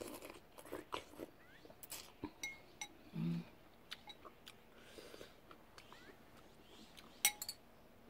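Close-up eating sounds: sipping and chewing, with light clicks of chopsticks and a metal spoon on a ceramic soup bowl. A short low hum comes about three seconds in, and a sharp spoon-on-bowl clink near the end.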